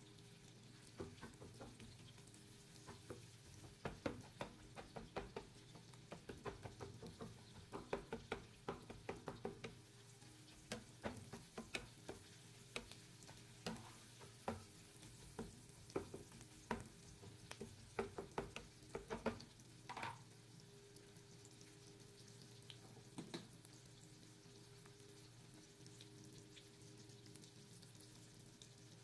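Crumbled chorizo sizzling faintly in oil in a nonstick frying pan, with a black spatula scraping and clacking against the pan as the meat is stirred for most of the first twenty seconds. After that the sizzle carries on alone, with one last couple of scrapes.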